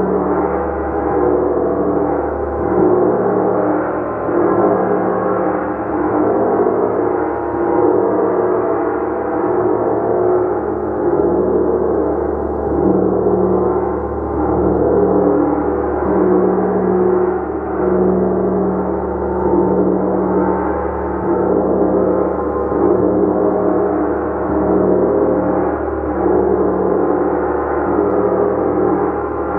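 Gong played continuously, a dense wash of many overlapping sustained tones that swells and eases about every two seconds, with no single hard strike standing out.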